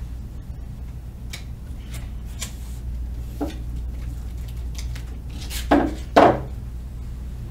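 Craft materials being handled on a tabletop as a printed transfer sheet is laid on a canvas: small taps, rubs and rustles, with two louder bumps close together about six seconds in, over a steady low hum.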